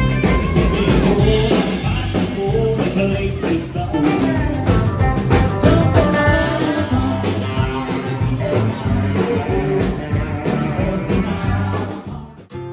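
Rock music with a singer, electric guitar and a steady drum beat, cutting off abruptly just before the end.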